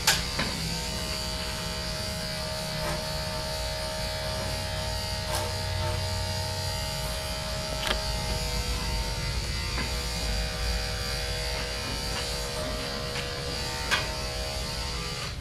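Corded electric dog grooming clippers running steadily with a constant hum while shaving the dog's head, with a few faint clicks.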